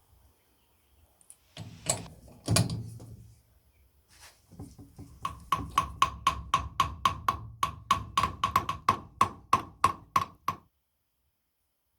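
Hammer blows on wood: a couple of heavier knocks, then a fast even run of light taps, about four a second for five seconds, each with a short metallic ring.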